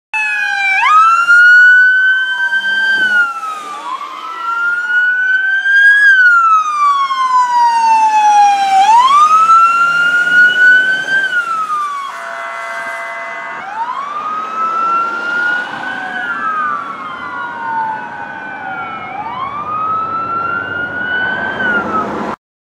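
Emergency vehicle sirens wailing in slow rising and falling sweeps as an ambulance and a fire rescue truck pass, with two sirens overlapping at times. About halfway through, the rescue truck sounds one blast of its air horn, a steady chord lasting over a second. The sound cuts off suddenly near the end.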